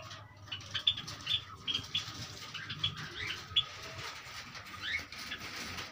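Java sparrows giving short, high chirps at irregular intervals, with a couple of brief rising calls near the middle and near the end.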